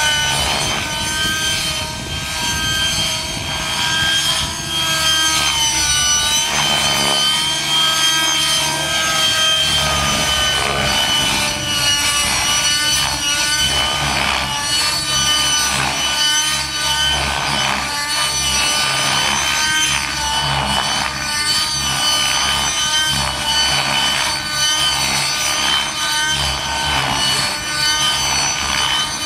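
Radio-controlled nitro model helicopter flying aerobatics: a continuous high whine from the engine and rotors over a buzzing rotor chop. The pitch wavers and dips with the manoeuvres, most clearly about six seconds in.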